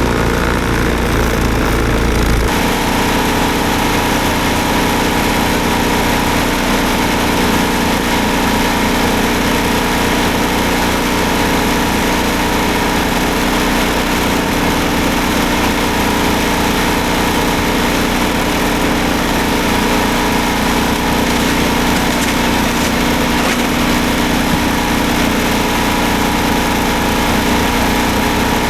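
Snowblower's small engine running steadily. The sound changes abruptly about two seconds in, then holds an even pitch.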